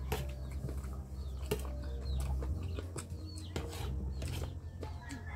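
Eating sounds: fingers and a spoon working food on a plate, giving scattered short clicks and taps over a steady low rumble.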